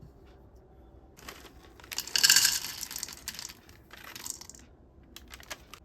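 Packaging being crinkled and torn open: a rustling, tearing burst that starts about a second in and is loudest around two seconds in, then dies away, with a few sharp clicks near the end.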